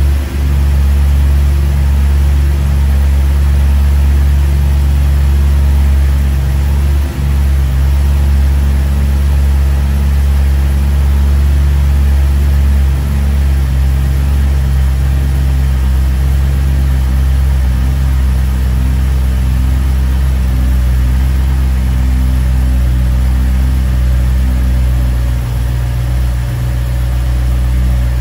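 BMW E92 M3's S65 4.0-litre V8 idling steadily while still cold, on its first start after six months standing.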